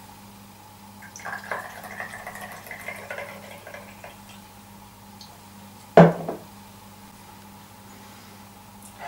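Homemade grain spirit poured from a glass bottle into a small shot glass for a couple of seconds, then a single sharp knock about six seconds in.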